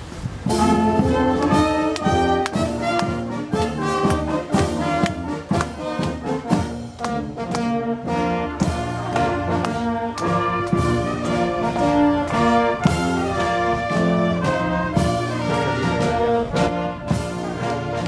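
Uniformed marching brass band playing, with sousaphones, trumpets and a steady drum beat; the band strikes up about half a second in.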